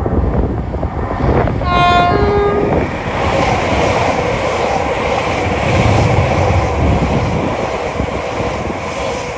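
A passing train's two-tone horn sounds once, briefly, about two seconds in: a high note then a lower one, a driver's short toot of greeting. It is heard over the loud, steady noise of the train going by.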